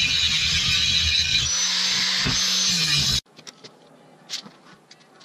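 Electric angle grinder running against a steel plate: a steady hissing grind over the motor's hum. About three seconds in it stops abruptly, leaving a few faint light taps.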